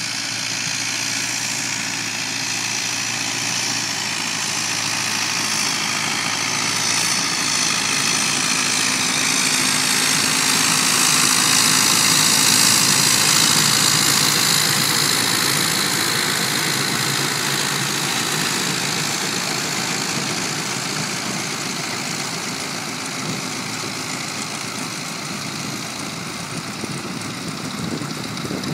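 Ford 5610 tractor's diesel engine running steadily while it pulls a Krone chain-and-slat round baler picking up hay, the baler's pickup and chains running with it. It grows louder as it passes close about halfway through, then fades as it moves away.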